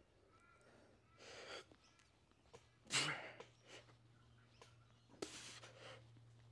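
A man breathing hard and sharply while pressing heavy dumbbells, with three forceful exhales about two seconds apart, the loudest near the middle.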